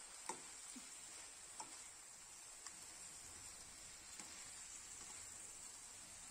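Faint stirring of chicken in thick masala in a nonstick pan: a spatula knocks lightly against the pan four times, the first and loudest about a quarter second in, over a faint steady hiss.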